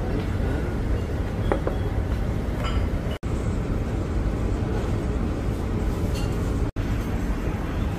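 Restaurant dining-room background noise: a steady low rumble with a few faint clinks of cutlery and tableware. It drops out briefly twice, a little after three seconds and near seven seconds in.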